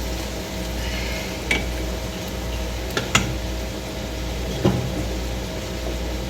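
A spoon stirring a heavy pot of fried rice, with a few sharp knocks and scrapes against the pot, over the steady hum of an air conditioner.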